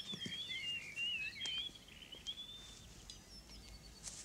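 Songbird singing a warbling phrase for about two seconds, followed by a few thinner, higher notes.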